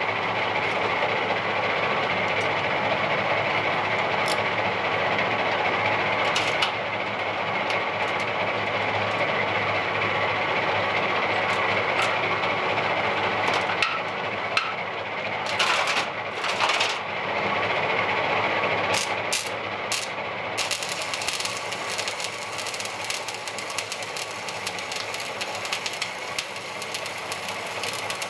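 Wire-feed welder arc crackling and hissing in long continuous runs, with a few sharp pops. In the last third the crackle turns denser and sharper.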